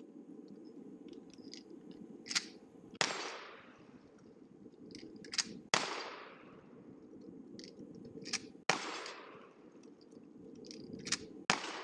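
Four shotgun shots about three seconds apart, each trailing off in a long echo. A quieter sharp click comes about half a second before each shot.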